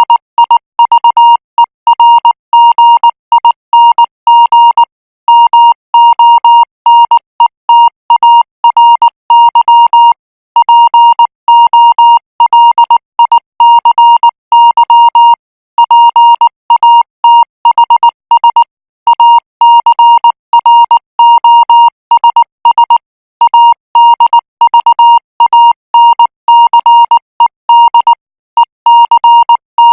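Morse code practice signal: a single high beep tone keyed on and off in dots and dashes at 18 words per minute, with short gaps between letters and longer ones between words.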